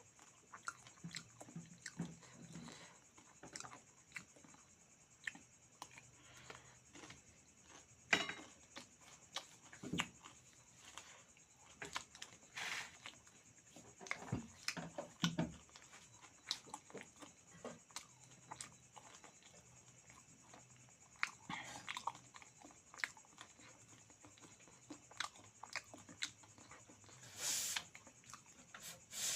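Close-up eating sounds: irregular crunching, smacking and chewing as beaten rice (chiura) and meat are eaten, with a couple of longer, hissier sounds in the second half.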